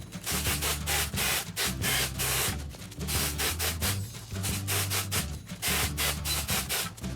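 Background music with a bass line stepping between notes and a steady, busy beat.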